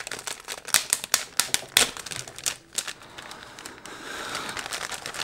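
Plastic packaging crinkling and crackling as it is handled: a quick run of sharp crackles over the first couple of seconds, then softer rustling.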